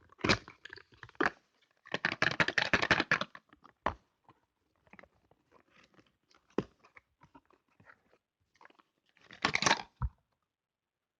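Cardboard packaging of a makeup advent calendar being handled and opened by hand: scattered clicks and taps, a rustling, crunching stretch about two seconds in lasting just over a second, another shorter one near the end, then a single knock.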